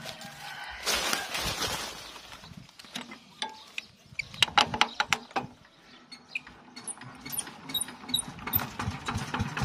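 Irregular metal clicks and clanks at a Yanmar TF105 single-cylinder diesel engine on a walking tractor as it is worked for starting. Near the end the engine catches and settles into even firing beats.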